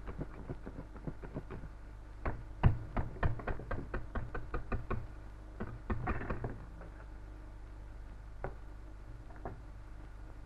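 Wire whisk beating whipped cream in a metal mixing bowl, tapping against the bowl's side in a quick run of about four taps a second, then a few scattered taps. A steady low hum runs underneath.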